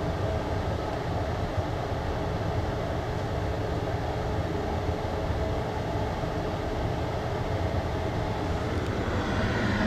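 Steady low rumble of a furnace and heater running, with a fainter hiss above it that grows a little louder near the end.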